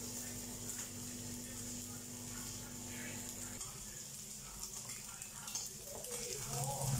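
Cooked rice sizzling faintly and steadily in oil in a nonstick frying pan, crisping on the bottom into scorched rice. A low steady hum cuts off about halfway through.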